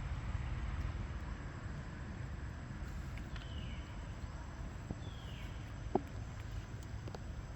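Two short, high animal calls, each falling in pitch, a couple of seconds apart, over a steady low rumble, with a single sharp click about six seconds in.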